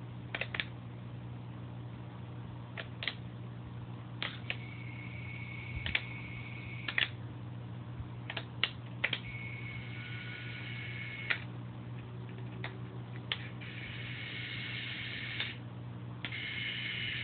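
A mini RC submarine's small propeller motors give a high thin whine in runs of a second or two, starting and stopping several times. Underneath is a steady low hum, with sharp clicks now and then.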